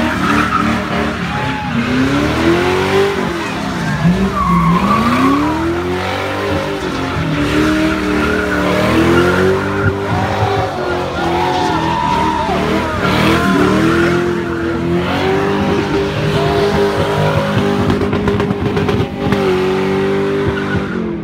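Car engine revving up and down again and again as the car spins donuts, its rear tyres squealing and spinning on the pavement, with voices from onlookers underneath.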